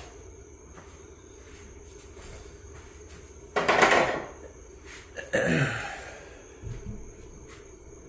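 Handling noise from engine parts: two loud clatters about three and a half and five and a half seconds in as a removed outboard engine cover is put down, then a lighter knock.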